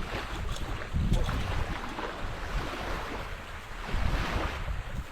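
Wind buffeting the microphone over a steady wash of sea surf, with stronger gusts about a second in and again around four seconds.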